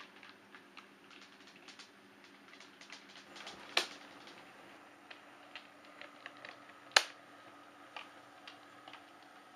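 Model trains running on a model railway layout: irregular light clicking of wheels over rail joints and points, over a faint steady hum, with two sharper clicks about four and seven seconds in.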